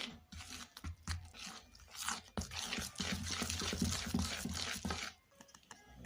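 Close kitchen handling sounds while making noodle dough: a rapid, irregular run of crunchy scraping and small clicks that stops suddenly about five seconds in.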